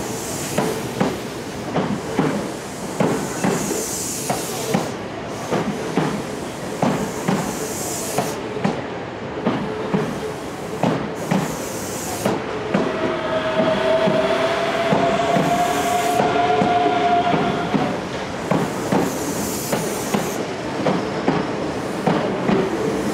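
Osaka Municipal Subway 66 series electric train moving along the station platform, its wheels clacking over rail joints and points in a steady rhythm. Near the middle a whine sounds for a few seconds, rising slightly in pitch.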